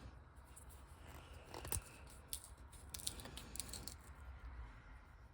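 Faint handling noises of small objects on a workbench: a few light clicks and rustles over a low steady room hum.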